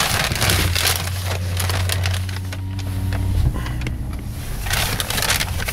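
Paper fast-food bag crinkling and rustling inside a car, over the low steady hum of the car pulling away.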